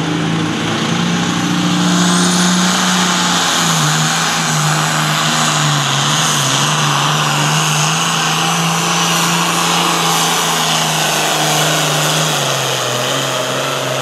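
International Harvester hot farm pulling tractor's diesel engine running flat out under heavy load as it drags a weight-transfer sled. The note is loud and steady, pulling down slightly about three and a half seconds in and again near the end.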